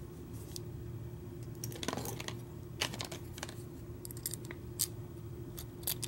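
Lock pick and tension wrench working in a Schlage deadbolt's pin-tumbler cylinder: small metallic clicks and scrapes at irregular intervals, over a steady faint hum.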